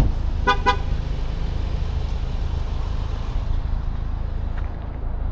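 Two quick toots of a car horn about half a second in, over a steady low vehicle rumble.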